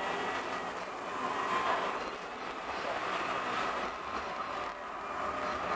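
A Turin series 7000 tram rolling along street track, heard from inside its rear cab: a steady running noise of wheels on rails.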